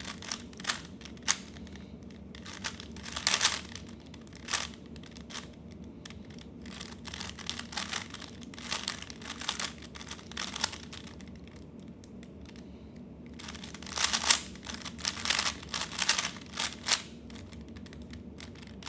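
3x3 Rubik's cube being turned fast during a speedsolve: flurries of rapid plastic clicking and clacking, broken by short pauses, with the busiest flurry near the end.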